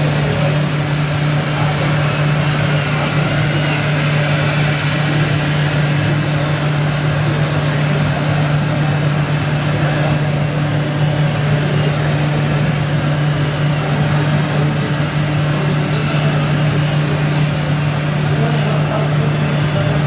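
Steady low engine idling hum, typical of the diesel sound modules fitted to scale RC trucks. It runs without change or revving.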